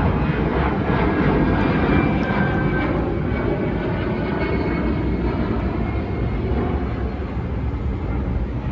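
Airbus A319 jet engines at takeoff power as the airliner climbs away: a loud, steady roar with a faint whining tone in the first few seconds, slowly fading.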